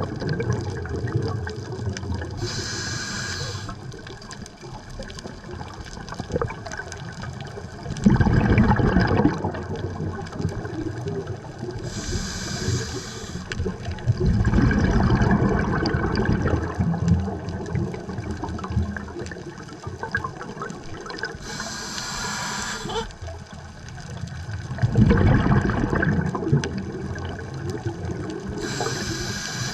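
Underwater sound of a scuba diver breathing through a regulator: four times, a short hiss on the inhale, then a louder burst of rumbling, gurgling exhaled bubbles.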